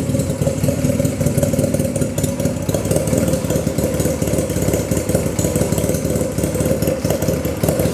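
1997 Honda Rebel 250's air-cooled 234 cc parallel-twin engine idling steadily, run briefly to circulate freshly added oil before the level is rechecked on the dipstick.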